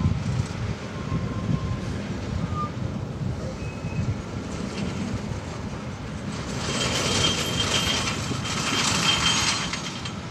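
Heavily loaded semi truck with a lowboy trailer rolling past, with a steady low diesel rumble. From about six to nine and a half seconds a louder hiss and rattle, with a thin high squeal, comes as the trailer goes by.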